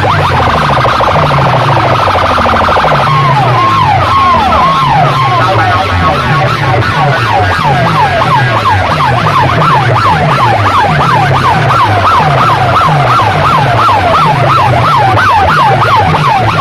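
Stacked horn loudspeakers of a DJ sound system blasting an electronic siren effect over a heavy bass beat, very loud. A steady high buzz for the first three seconds gives way to a falling wail repeating about twice a second.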